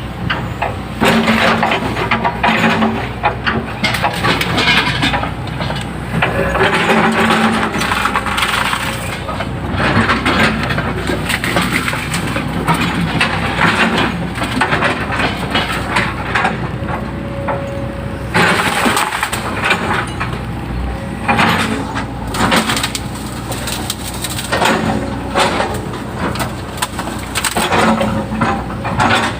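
Hydraulic excavator's diesel engine running under digging load, its pitch rising and easing again several times, with repeated rough crunching as the bucket works through swamp soil and woody debris.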